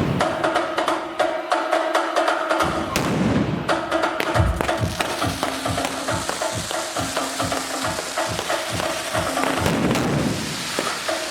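Loud music with a steady beat, with the bangs and crackling of fireworks mixed in.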